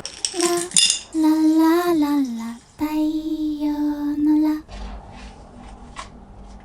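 A woman humming a slow tune without words: a few long held notes that slide gently in pitch. About two-thirds of the way through the humming stops, and light clinks of tableware follow.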